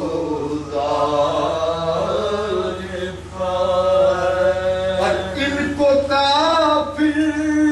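A man chanting a salaam, an Urdu devotional poem, in long drawn-out melodic phrases, with brief breaks for breath about three and five seconds in.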